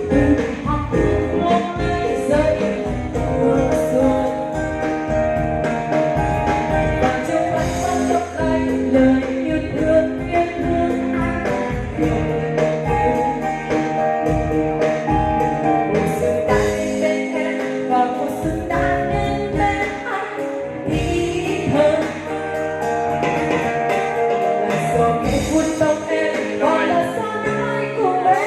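Music with a singing voice, playing continuously.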